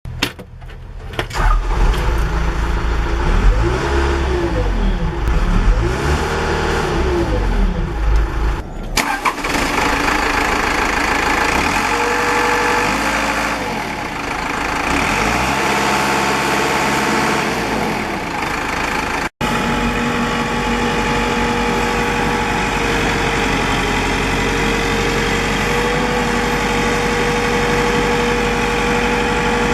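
Case 590 Super M loader backhoe's diesel engine starting up, then running with the revs rising and falling repeatedly. After a couple of abrupt cuts it runs steadily at idle with a constant whine.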